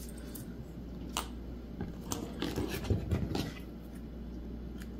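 A few faint, soft clicks and rustles as a fabric wristlet key fob with metal clasp hardware is turned over in the hands.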